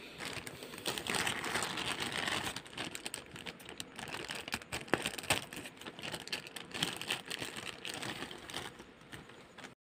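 Thin clear plastic packaging bag crinkling and crackling as hands rummage in it, with a sharp click about halfway through.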